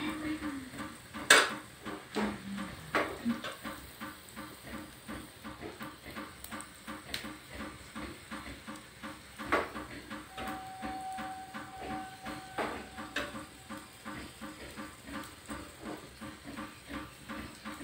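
Hot oil crackling and spluttering in a small tempering pan as curry leaves, garlic and green chilli fry for the chhunk (tadka) on a gas burner: dense, irregular crackles over a soft hiss. A sharp knock about a second in, and a few smaller knocks later.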